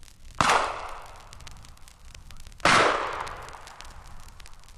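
Two gunshots about two seconds apart, each a sharp crack followed by a long echoing tail that fades away.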